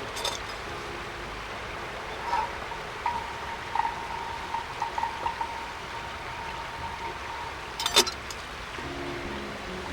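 Steady hiss, typical of a portable gas heater's burner, with a thin steady tone joining it a couple of seconds in. A few small knocks, and a sharp click about eight seconds in.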